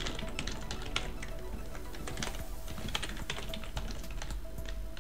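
Typing on a computer keyboard: irregular, quick key clicks as a shell command is typed.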